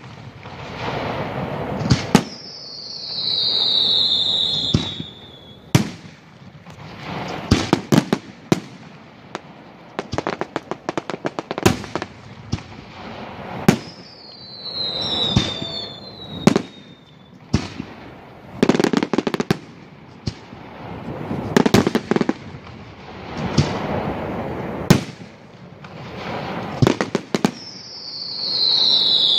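Aerial fireworks display: shells bursting with sharp bangs, bursts of rapid crackling, and high whistles falling in pitch about two seconds in, midway, and near the end.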